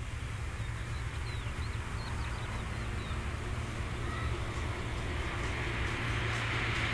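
A car approaching along a paved road, its tyre and engine noise growing gradually louder as it nears. A few short bird chirps come about two seconds in.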